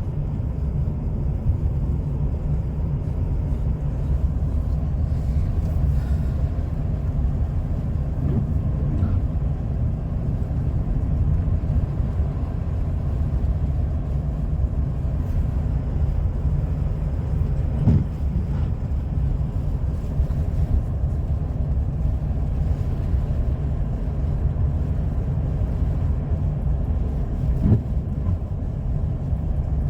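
Steady low road and engine rumble heard inside a car's cabin while it drives on a snowy highway. Two brief knocks come through, one past the middle and one near the end.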